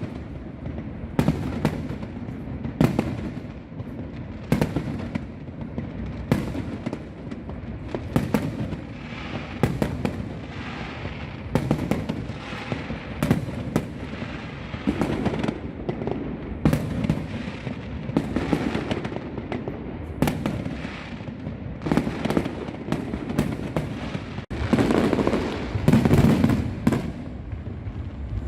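Festive fireworks display: a run of loud bangs from bursting shells, about one a second at irregular intervals, over a rumbling, crackling background, with a denser cluster of bangs near the end.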